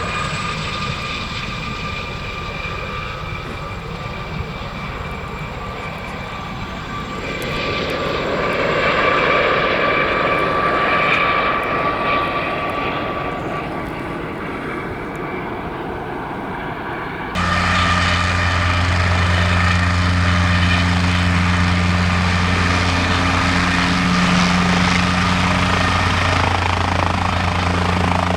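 Helicopter taking off: a steady high turbine whine over rotor and engine noise, swelling about a third of the way in. About two-thirds of the way through the sound switches abruptly to a steady, lower aircraft engine drone.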